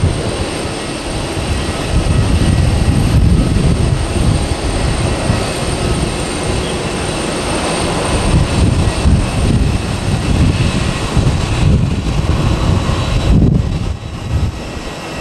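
The Airbus A330-900's Rolls-Royce Trent 7000 turbofans at takeoff-climb power as the airliner climbs away: a steady, deep jet rumble that wavers in strength, dipping briefly near the end.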